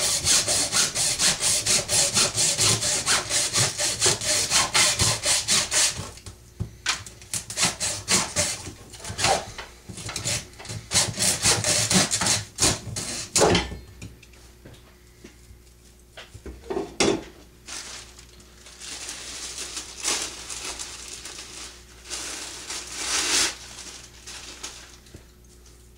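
Hacksaw cutting through a broom's wooden handle, with fast, even strokes that turn slower and uneven after about six seconds as the cut goes through. A thump comes about 13 seconds in and a knock a few seconds later, followed by softer handling sounds.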